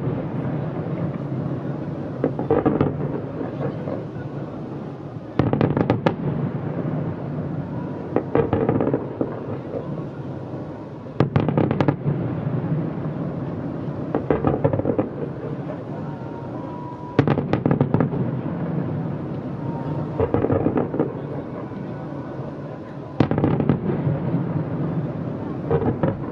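Distant aerial fireworks display: clusters of sharp bangs from bursting shells about every three seconds, with a continuous rumble and crackle between them.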